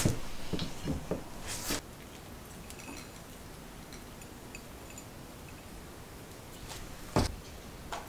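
Light knocks and clinks of tableware: a ceramic plate and wooden cutlery being set down on a wooden table during the first two seconds, then quiet room tone until a single knock about seven seconds in.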